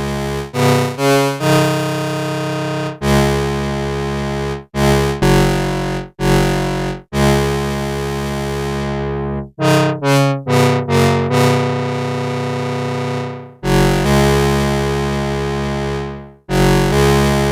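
Behringer CRAVE analog synthesizer, one oscillator through a ladder filter, playing a low, buzzy monophonic sequence dry without effects. Long held notes alternate with quick runs of short ones, each starting sharply, and on some held notes the filter slowly closes so the tone darkens.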